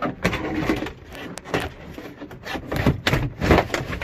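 Car trunk trim and battery box parts being handled and fitted by hand: irregular knocks, scrapes and rattles, loudest near the end.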